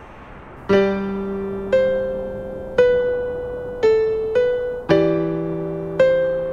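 Piano playing a slow melody, single notes and chords struck about once a second, each ringing and fading away; it comes in less than a second in.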